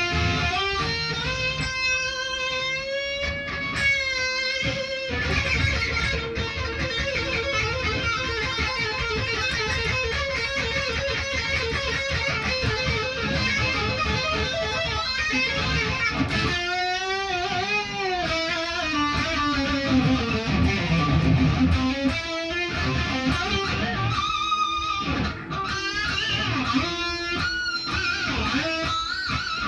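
Electric guitar playing continuous lead lines, with held notes that waver in pitch with wide vibrato.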